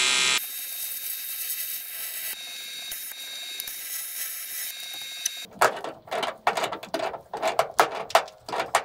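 Welding arc hissing and crackling steadily for about five seconds, after a louder hiss that cuts off just after the start. Then a run of sharp metallic clicks and clunks, a few a second, as the cut-and-rewelded Toyota Hilux steering rack is worked back and forth.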